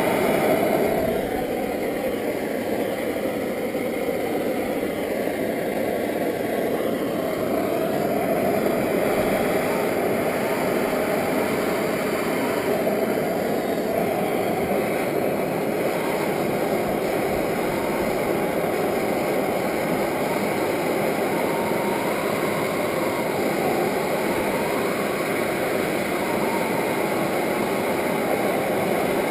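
Handheld gas soldering torch burning with a steady hiss, heating copper pipe and fittings for soldering.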